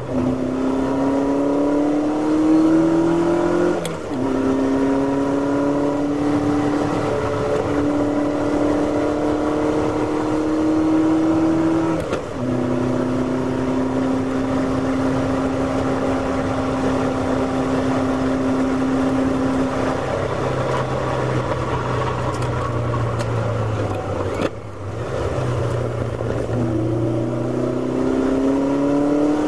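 Ferrari V8 race car engine heard from inside the car at racing speed, revs rising through the gears with sharp drops at upshifts about four and twelve seconds in. It then runs at steady revs for several seconds, drops to lower revs with a brief lift near the twenty-five-second mark, and climbs again near the end, over road and wind noise.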